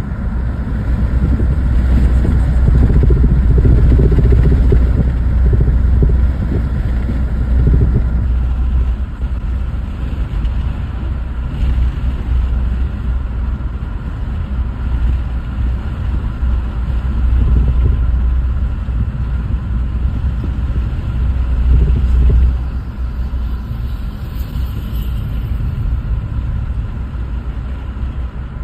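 A car driving, heard from inside the cabin: a steady low rumble of road and engine noise that swells and eases a few times as the car moves along.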